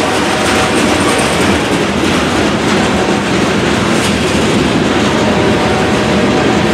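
Freight train of covered hopper cars rolling past, a steady loud rumble of steel wheels clacking over the rail joints.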